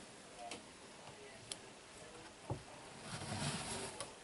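An answering machine playing in the background, faint and muffled, growing louder over the last second or so, after a few faint clicks about a second apart.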